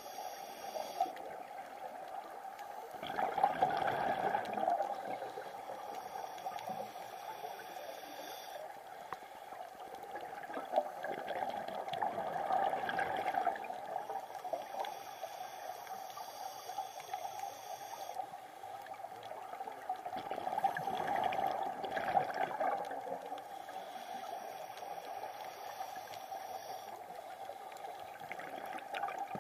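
Underwater sound of a scuba diver's exhaled bubbles gurgling out of the regulator in surges about every eight to nine seconds, over a steady underwater background.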